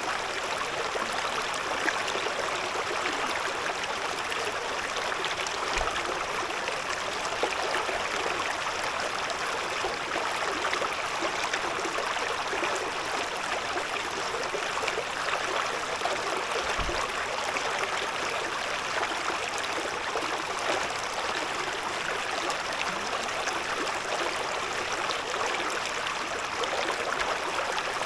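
Shallow river stream babbling steadily over stones.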